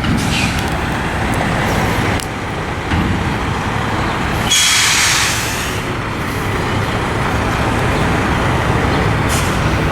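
Heavy sand truck's diesel engine running with a steady low rumble, and a loud burst of air hiss from its air brakes about four and a half seconds in, lasting about a second.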